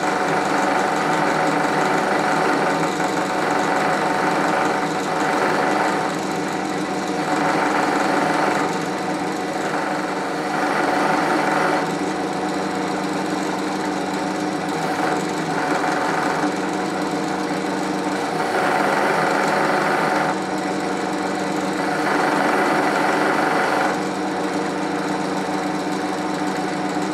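Pillar drill running with a wire wheel brush in its chuck, a steady motor hum throughout. A steel brake master cylinder plunger pin is held against the spinning wire wheel in repeated spells of a second or two, each bringing a louder rough scratching whirr.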